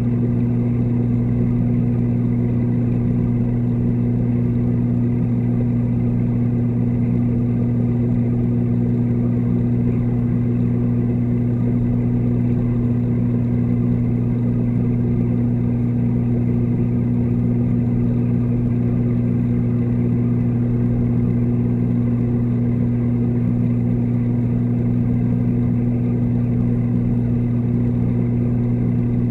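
Steady, unchanging low electric hum of a reef aquarium's water pump, heard underwater.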